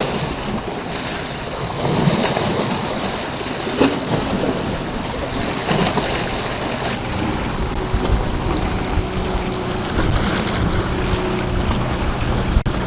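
Choppy sea waves washing and splashing against shore rocks, surging every couple of seconds, with wind buffeting the microphone. From about eight seconds in, the steady hum of a passing motorboat's engine joins the waves.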